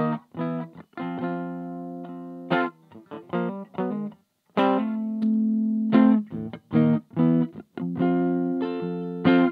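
Electric guitar played through a Little Rebel 2-watt amp kit with its clipping LEDs removed, heard from a Jensen CR8 speaker. Picked single notes and short phrases come between three chords, each let ring for a second or more.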